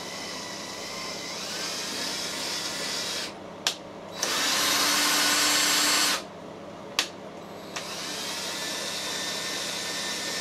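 Cordless drill motor running while it winds a lathe slide's feed screw, in three spells; the middle spell is the loudest. Single sharp clicks fall in the short pauses between the spells.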